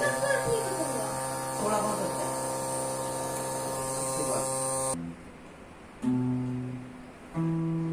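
Small DC motor buzzing steadily over background music, then cutting off suddenly about five seconds in.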